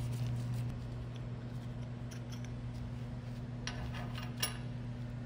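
Light metal clicks and scrapes as the threaded cap of a pump's seat ring holder is unscrewed and the metal parts are handled, with a cluster of sharper clicks near the end, over a steady low hum.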